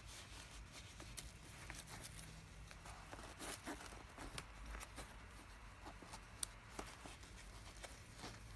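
Faint handling sounds of a small folding metal camping stove and plastic-wrapped cookware: light clicks and rustling, with one sharper click past the middle.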